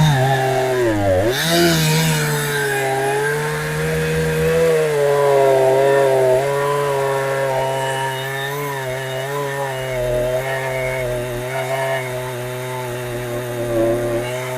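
Chinese clone of a Husqvarna 372XP two-stroke chainsaw, fitted with a genuine carburettor, running at high speed. Its pitch dips sharply and recovers about a second in, then holds fairly steady with slight wavering.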